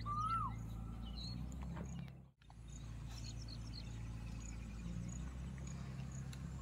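Outdoor ambience of small birds chirping, with one rising-then-falling call near the start, over a steady low rumble. The sound cuts out completely for a moment a little over two seconds in.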